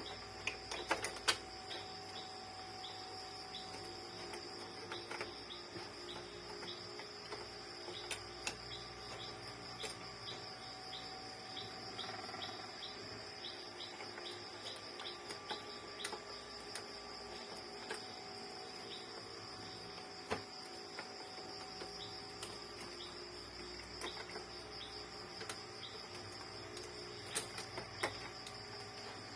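Steady high insect chirring, likely crickets, with scattered light clicks and taps as small printer parts are handled.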